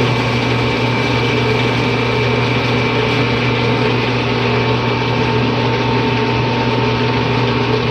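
18-inch LM dough sheeter's electric motor and rollers running steadily, a constant hum with a whir over it.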